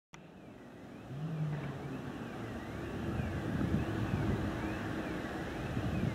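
Low rumble of an approaching steam locomotive, LMS Royal Scot class 46115 running light engine, growing steadily louder, with wind on the microphone. A faint tone that rises and falls about once a second runs above it.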